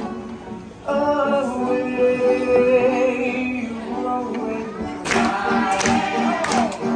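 Live stage performance of men and women singing together over instrumental accompaniment; the singing gets louder about a second in, and about five seconds in a fuller passage with a regular beat begins.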